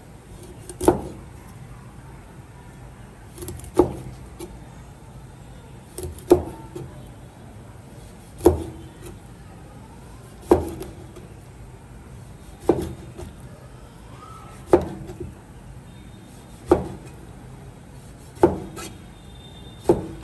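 Chinese cleaver slicing through a skin-on fish fillet and striking a plastic cutting board: about ten sharp knocks, one roughly every two seconds.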